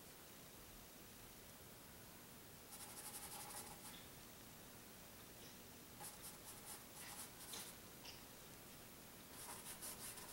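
Paintbrush scrubbing paint onto a canvas, in three bursts of quick scratchy strokes over a faint room hush.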